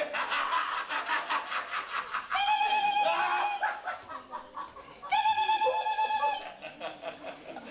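A man laughing hysterically in quick bursts, then letting out two long, high-pitched wavering squeals of laughter.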